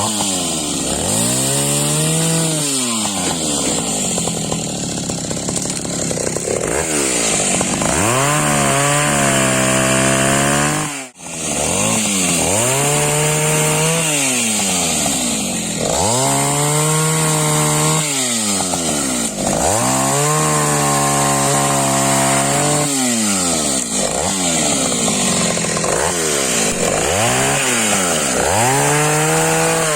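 Taiga 214 two-stroke petrol chainsaw revving up and falling back again and again, held at high revs for a few seconds at a time while cutting firewood logs. Its sound breaks off for an instant about a third of the way through.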